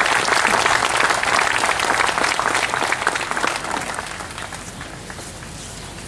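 Crowd applauding, loudest over the first few seconds and then dying away.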